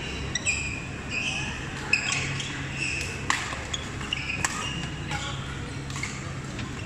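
Badminton rackets hitting a shuttlecock in a rally, a sharp smack about every second, with short high squeaks of shoes on the court floor over the murmur of voices in a large hall.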